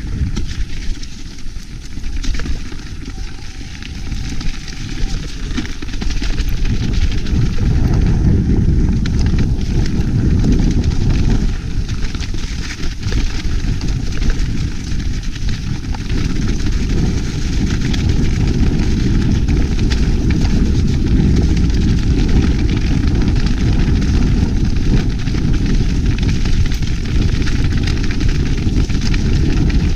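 Wind rushing over an action camera's microphone with the rumble and rattle of a mountain bike's tyres and frame on a snowy, stony track at speed. Steady and loud, growing louder about six seconds in.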